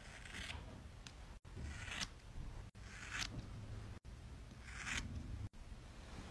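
Scissors snipping through a dog's long fur, about four cuts a second or so apart.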